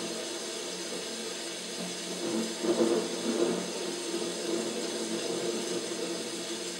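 Water running and splashing in a paludarium during its simulated rainstorm: a steady rushing, with a brief louder surge about two and a half seconds in.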